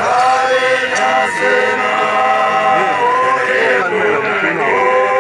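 A group of male voices chanting in unison, in long held notes that break off and start again a few times.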